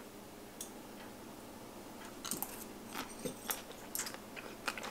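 A person eating cucumber salad with chopsticks: faint scattered clicks and crunches start about two seconds in, after a quiet moment.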